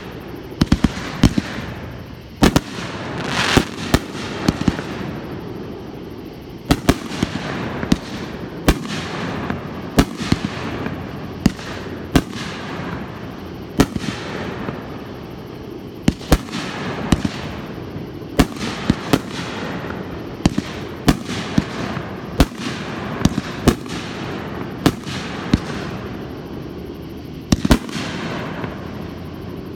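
Aerial firework shells bursting overhead in quick succession: dozens of sharp bangs at uneven intervals, with a steady noisy wash between them.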